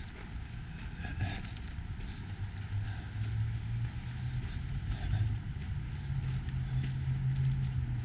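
Footsteps on a gravel path at walking pace over the low hum of road traffic, which grows louder about three seconds in.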